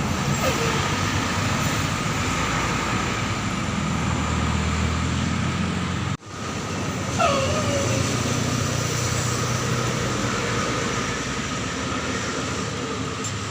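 Large tour bus's diesel engine and tyre noise passing close on an uphill climb, the engine swelling twice as buses go by. A brief falling squeal comes near the start and again about seven seconds in, and the sound breaks off abruptly about six seconds in.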